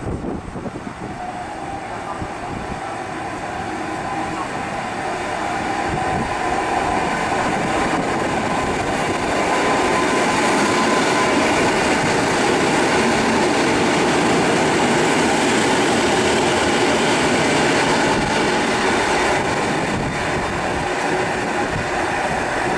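EN57FPS electric multiple unit pulling in along the platform: wheels on rail and a steady whine. It grows louder over about ten seconds as the carriages come alongside, then eases slightly near the end.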